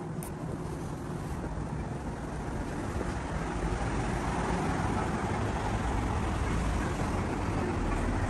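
Street rumble of road traffic and wind on the microphone, growing louder a few seconds in and then holding steady.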